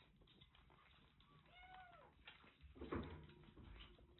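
Faint sounds of kittens eating wet food from metal dishes: small clicks and smacks. A kitten gives one short mew that rises and falls about a second and a half in, and a dull knock about three seconds in is the loudest sound.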